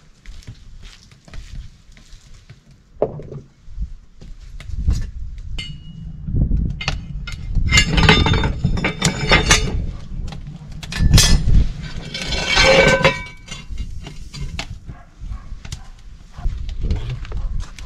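Cast-iron frying pans and stove rings clanking against the iron top of a wood-fired brick stove, with clinks of glass and dishes. The clatter is heaviest in two spells, about seven to ten seconds in and again around twelve seconds.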